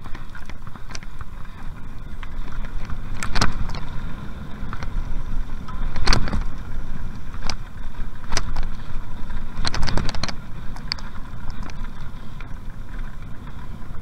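Mountain bike running fast down a dirt forest trail: a steady rumble of tyres and wind on the microphone, with the bike rattling and several sharp knocks as the wheels hit bumps, the loudest about six seconds in.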